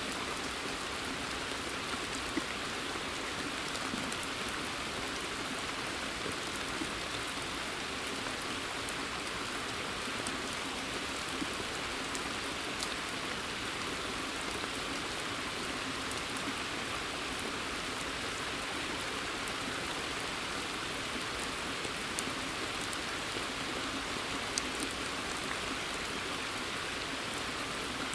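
Steady rain falling, an even hiss of many drops, with a scattering of single close drops ticking sharply now and then.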